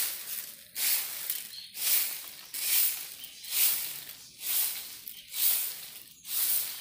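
Footsteps in plastic sandals scuffing on a gritty, sandy dirt path at a steady walking pace, about eight short scrapes.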